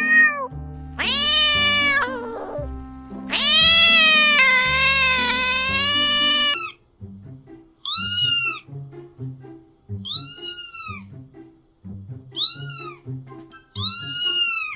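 Cat meowing repeatedly over background music: a drawn-out meow of about three seconds, then several short meows a couple of seconds apart.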